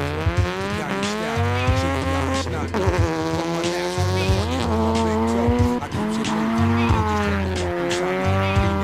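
Mazda RX-7 (FC) drift car sliding, its engine revving up and down with tyre squeal. A hip hop beat runs underneath, its heavy bass note returning about every two and a half seconds.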